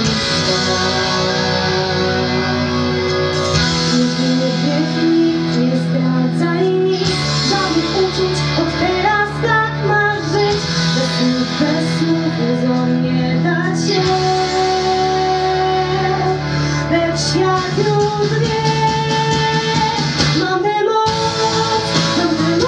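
Music: a young female singer performing a pop ballad in Polish over an instrumental backing track, the chords changing every few seconds.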